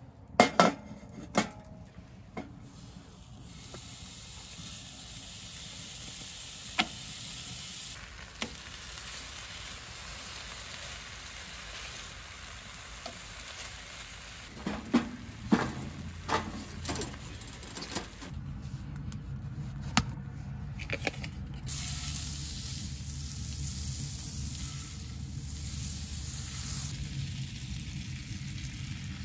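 Venison bacon sizzling steadily in a frying pan. A few sharp knocks near the start, and more about halfway through as the pan and spatula are handled.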